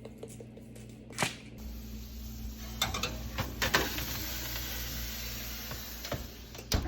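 A few sharp clicks and knocks, scattered and irregular, over a steady low hum that comes in about a second and a half in.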